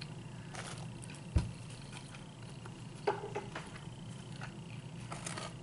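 Close-up mouth sounds of someone chewing crinkle-cut fries and fried chicken, with scattered soft clicks and small crackles and one dull bump about one and a half seconds in.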